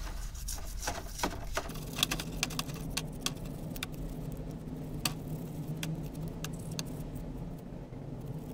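Steel dog-tooth pin and toothbrush clicking and clinking against a plastic tub of white spirit as the part is scrubbed clean, in irregular sharp knocks. A steady low hum comes in about two seconds in.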